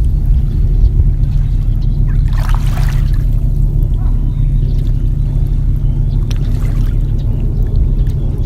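Water trickling and sloshing, with a louder splash about two and a half seconds in, over a steady low rumble.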